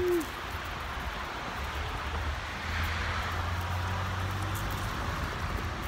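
Road traffic going by: a steady wash of traffic noise over a low engine hum, swelling as a vehicle passes about halfway through. A brief hummed 'mm' from a voice right at the start.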